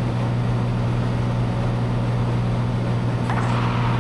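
Steady drone of a Cessna 182's piston engine and propeller in flight, heard inside the cabin.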